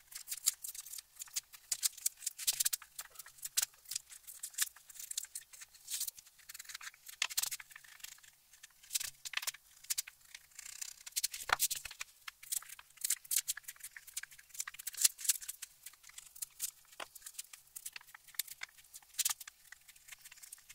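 Small knife blade scraping and prying a dry paper pastedown off a bookboard: a steady run of short, irregular scratches and crackles of paper lifting, several a second, with a duller knock about halfway through.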